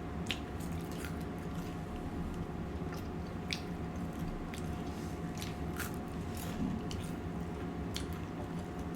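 A person chewing food, with short wet mouth clicks scattered irregularly through.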